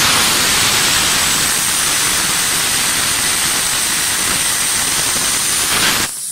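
Compressed air blasting with a loud, steady hiss and a thin high whine over it, from the CNC machine's spindle during an automatic tool change. It cuts off abruptly near the end.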